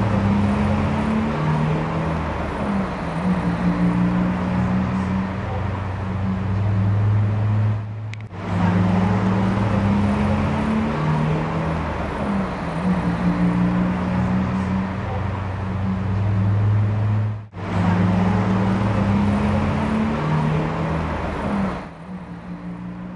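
Street traffic: vehicle engines running with a steady low hum and road noise. It breaks off briefly twice.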